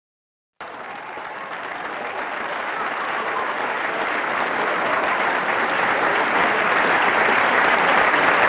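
Silence, then about half a second in applause starts abruptly and swells steadily louder.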